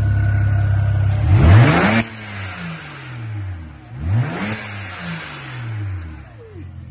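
BMW 335i's N54 twin-turbo straight-six idling, then revved twice, about a second and a half in and again about four seconds in. Each time the throttle snaps shut, a short sharp hiss of air vents from the HKS blow-off valve as the revs fall back.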